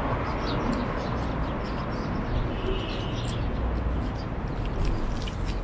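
Birds chirping, with short high calls scattered through, over a steady low rumble.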